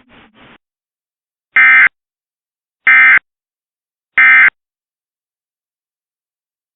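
Emergency Alert System end-of-message signal: three short, identical bursts of SAME digital data tones, about a second and a quarter apart, marking the end of the alert.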